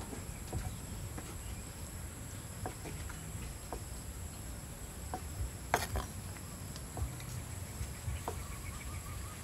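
Kitchen knife cutting soft white blocks on a thick wooden chopping block: scattered light knocks of the blade on the wood, the loudest about six seconds in. A steady high insect drone runs underneath.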